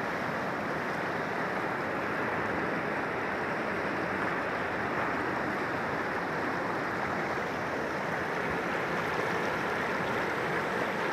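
Fast-flowing muddy floodwater rushing and churning in a steady, even wash of noise.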